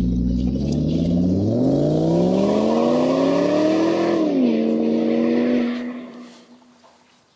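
Car engine idling, then revving up smoothly over a few seconds and dropping back to a steady lower speed before fading out.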